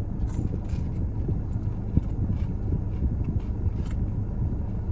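Eating sounds, a few short crisp crunches and mouth clicks from chewing fried chicken strips, over a steady low rumble.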